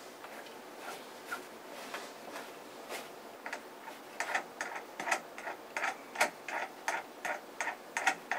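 Irregular small mechanical clicks from hand work on a carpeted cat tower during dismantling: a few at first, then about three a second from about halfway through.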